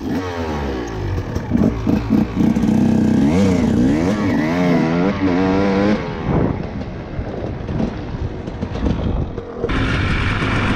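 Dirt bike engine revving up and down as it is ridden, the pitch rising and falling several times. The engine sound changes abruptly near the end.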